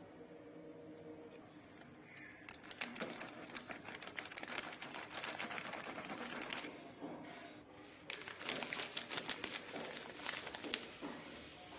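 Packaging being handled and opened: dense crinkling with many small irregular clicks, starting about two and a half seconds in, with a short lull midway.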